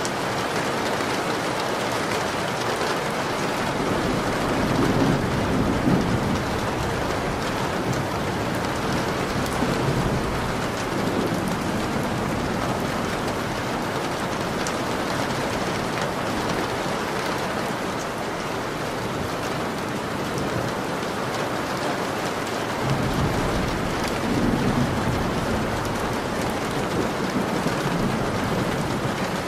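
Steady rain, with two low rolls of thunder: one about five seconds in and another about twenty-three seconds in.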